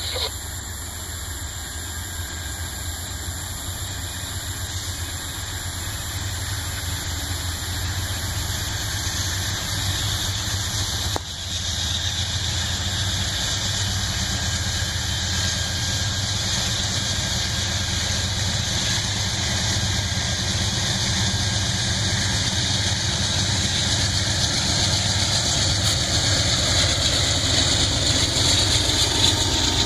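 Amtrak GE P40DC and P42DC diesel locomotives approaching, their engines growing steadily louder as the train nears and the lead unit draws level near the end, over a steady high hiss.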